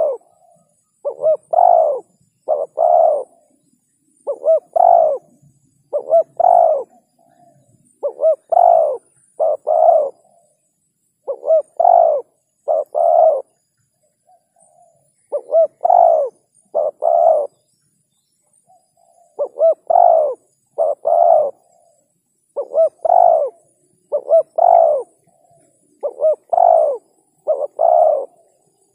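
Spotted dove cooing: short phrases of a few low coos, a quick lead-in note followed by longer notes, repeated about every three seconds with a couple of brief pauses.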